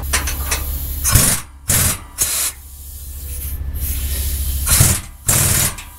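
Air tool hissing in five short bursts, three in the first half and two near the end, over a steady low hum.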